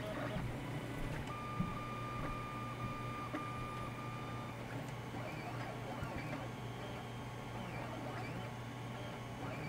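Prusa i3-style desktop 3D printer printing: its stepper motors whine in short steady tones, then in repeated rising-and-falling sweeps from about halfway as the print head moves, over a steady low hum.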